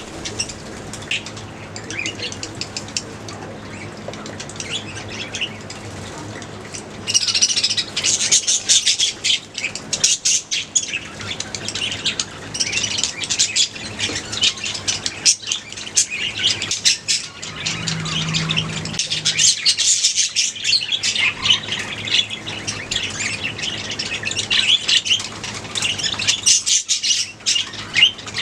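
A colony of budgerigars chirping and chattering in many overlapping short calls, growing busier and louder from about seven seconds in, over a steady low hum.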